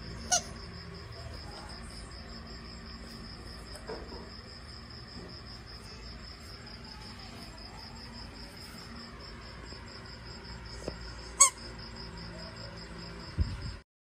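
Crickets chirping in a steady, high, pulsing trill, with a couple of sharp clicks, the loudest about eleven seconds in. The sound cuts off just before the end.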